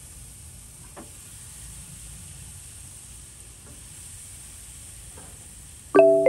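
Chicken thighs sizzling on the hot grate of a charcoal-fired Oklahoma Joe's Bronco drum smoker as more pieces are laid on, with a light tap about a second in. Near the end, a short, loud pitched sound breaks in.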